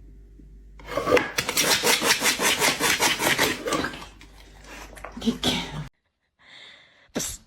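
Rhythmic scratching strokes, about five a second, lasting a few seconds and then fading out. A short sharp click comes near the end.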